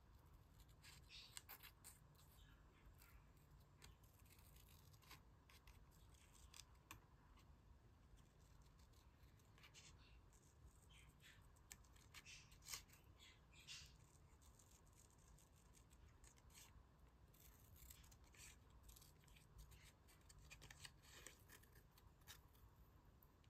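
Faint, irregular snips of scissors cutting small pieces out of glossy magazine paper.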